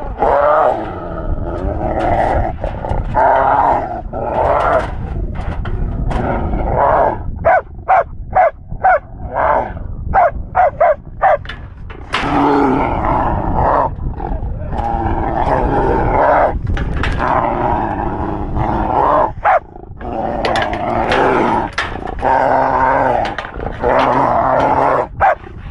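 Hunting dog growling and barking hard at a caged bear in bear-baiting training. About a third of the way in comes a run of short, sharp barks, two or three a second, and long stretches of growling follow.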